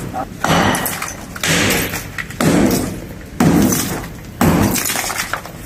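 Five heavy hammer blows about a second apart against the cement seal of a concrete tomb niche. Each blow is followed by a short rattle of breaking concrete.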